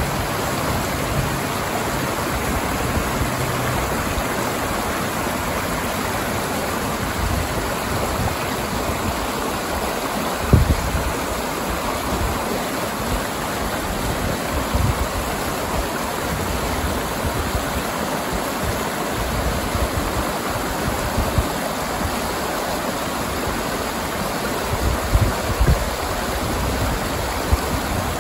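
A rocky mountain river rushing over boulders and through small rapids, a steady even rush of water. A few brief low thumps break through, the strongest about ten seconds in.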